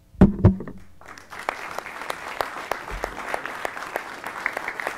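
Audience applauding, the clapping building up about a second in, after two loud knocks close to the microphone at the very start.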